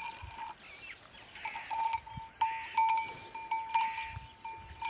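A small bell ringing over and over, its note coming in repeated short pulses, with scattered clicks and knocks.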